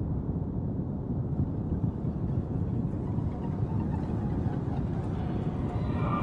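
A steady low rumbling drone from an animated cartoon's soundtrack. Faint high tones creep in over it about halfway through and grow louder near the end.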